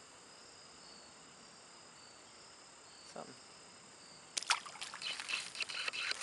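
Crickets chirping steadily; about four and a half seconds in, a run of splashes and sloshing in shallow creek water as a small rock bass is let go by hand.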